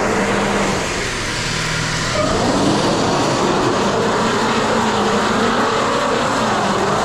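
A vehicle running steadily on an icy road, a constant rumble and hiss with no clear break.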